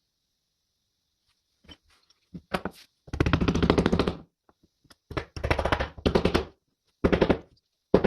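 Several short bursts of rapid rattling, each a second long or less, with silence between: a tool at work on the steel.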